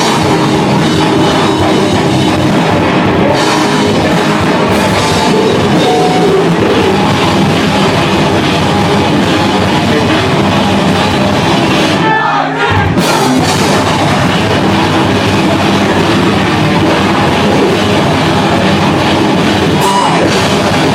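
Live rock band playing loudly and steadily, with a brief thinning of the sound about twelve seconds in.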